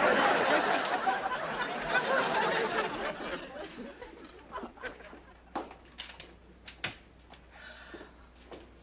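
Studio audience laughing, loud at first and dying away over about four seconds, then a few scattered sharp knocks.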